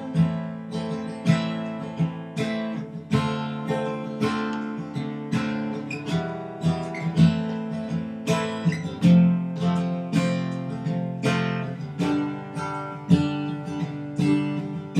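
Acoustic guitar strummed through a chord progression, a stroke roughly every half second to a second, with no singing over it.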